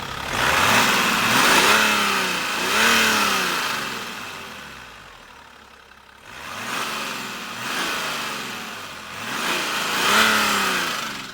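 BMW 535d's straight-six twin-turbo diesel being revved in repeated blips, its pitch rising and falling with each one: a first group of revs, a lull back toward idle, then a second group. The owner posts it as showing an engine knock.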